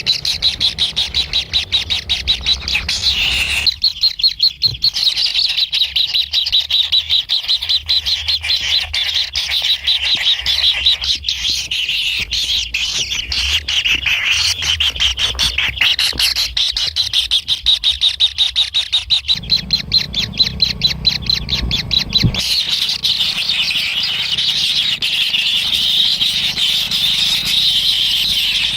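Kingfisher chicks calling without pause in fast, rapid trains of high chirps, the begging calls of hungry nestlings wanting food. A low rumble joins briefly past the middle, ending in a single knock.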